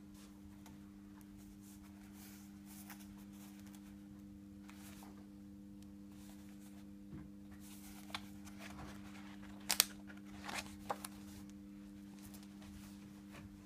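A freshly thermally bound paper document being handled and flexed, with scattered paper rustles and clicks; the sharpest comes about ten seconds in. Under it runs a steady low hum.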